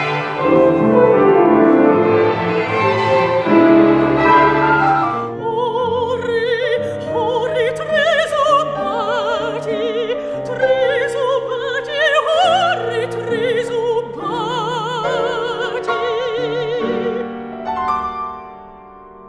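Opera music: a small orchestra with strings plays, then about five seconds in a woman begins singing in operatic style with wide vibrato over the accompaniment. The music thins and drops in level near the end.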